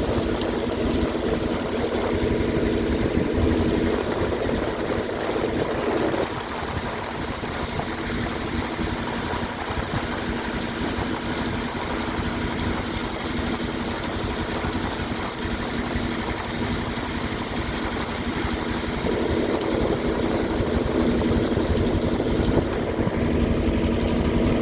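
A river boat's engine running steadily with a low, even hum. It drops a little about six seconds in and picks up again near the end.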